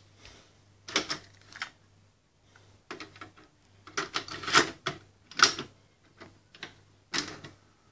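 Plastic clicks and clatters of a dual-cassette boombox deck being handled: the cassette door opening and shutting, a cassette pushed into place, and a piano-key transport button pressed. The clicks come in small clusters, the loudest between about four and five and a half seconds in.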